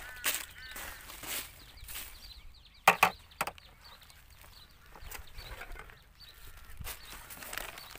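Footsteps and rustling through dry plastic rubbish as someone scavenges. About three seconds in there is a sharp clatter of hard objects: two quick knocks, then a third just after.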